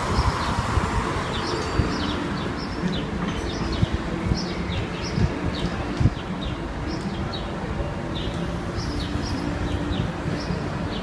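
Steady low rumble of street traffic, with short high bird chirps repeating over it.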